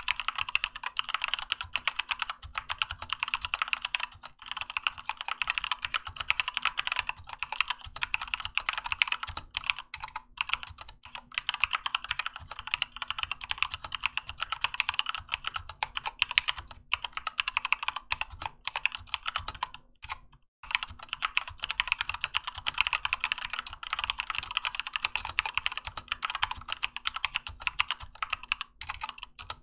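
Keychron K2 mechanical keyboard with Gateron Red linear switches and OEM-profile PBT keycaps being typed on fast and continuously, a dense stream of key clacks with a brief pause about twenty seconds in.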